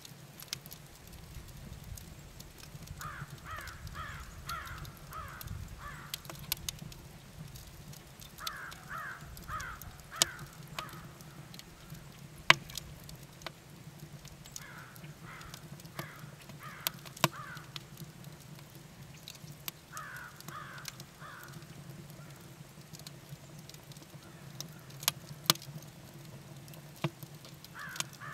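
Wood fire crackling in a cast aluminum chiminea, with sharp pops every few seconds, the loudest a little after halfway. Behind it a bird calls in runs of five or six quick notes, a run every five or six seconds.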